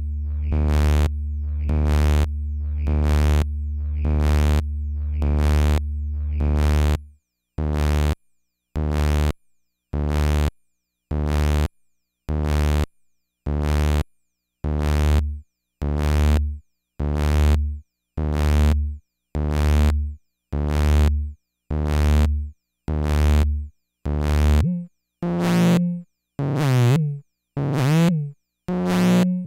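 Infernal Noise Machine desktop analog synthesizer, self-patched, pulsing in a steady rhythm of about three notes every two seconds. A low drone under the pulses drops out about seven seconds in, leaving short separate pulses. Near the end the pulses take on falling pitch sweeps as the knobs are turned.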